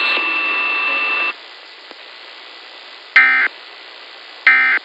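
Emergency Alert System end-of-message data tones: short, loud bursts of digital warbling, about 1.3 s apart, marking the close of the alert. Before them a hissy broadcast background with a steady high whine cuts off about a second in.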